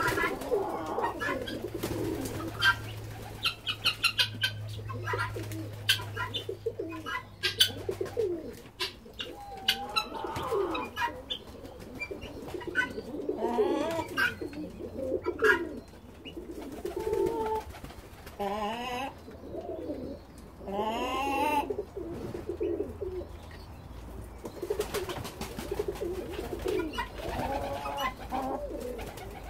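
Domestic pigeons cooing over and over, mixed with other short bird calls from a crowded aviary flock and scattered sharp clicks.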